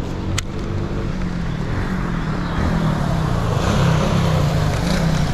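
A motor vehicle's engine running and passing by, its low hum wavering in pitch and its rush growing louder toward the middle. A single sharp click sounds shortly after the start.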